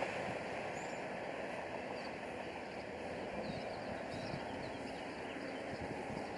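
Steady outdoor wind noise rushing on the microphone, with a few faint high chirps about three to four seconds in.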